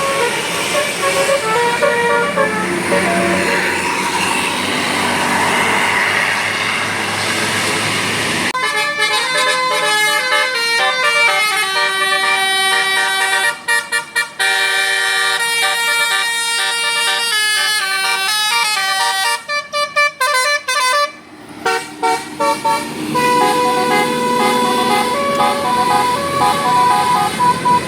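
Telolet Basuri multi-tone bus horn playing a tune of quick stepped notes. For the first eight seconds the notes sit faintly under a steady noisy din, then the melody comes through loud and clear, with short breaks about halfway through and again near twenty seconds in before it starts again.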